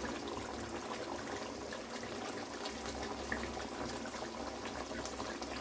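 Chicken curry simmering in the pan as it heats through after yogurt has been stirred in: a steady bubbling with small scattered pops.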